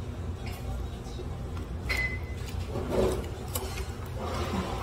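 Restaurant room tone: a steady low hum with a couple of light clinks of forks against plates and a faint murmur of background voices.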